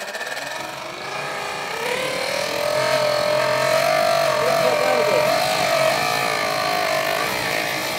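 Toy jet engine model spun by a high-speed electric motor, running with gas burning inside it: a loud, steady whine that climbs a little in pitch over the first few seconds and then holds, over a hiss.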